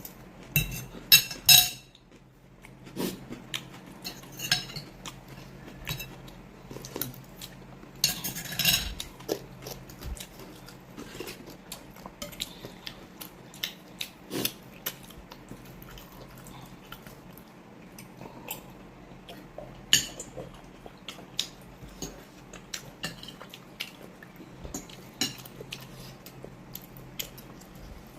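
Spoons and forks clinking and scraping against plates and bowls during a meal: irregular light clicks throughout, with louder clusters about a second in and around eight seconds in.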